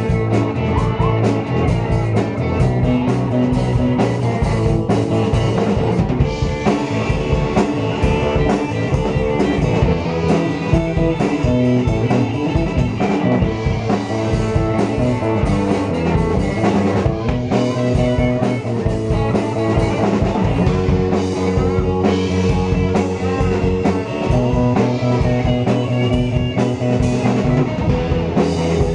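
A live rock band plays an instrumental passage on electric guitars and a drum kit, with steady drum hits under the guitars and no singing.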